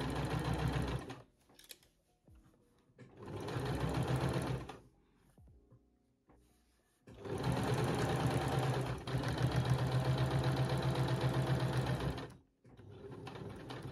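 Domestic electric sewing machine stitching a collar onto a knit neckline, running in spurts: a short run, a pause, another run of under two seconds, then a longer run of about five seconds. It starts again more quietly near the end.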